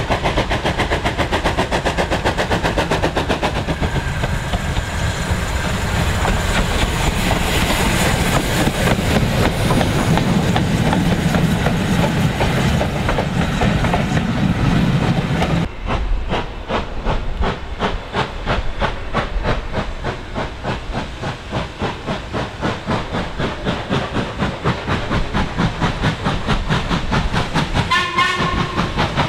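LMS Ivatt Class 2 2-6-2 tank engine working a train: wheels and rail clatter as the engine, vans and coaches roll by, then, a little past halfway, the engine approaching with steady rhythmic exhaust beats. A short whistle near the end.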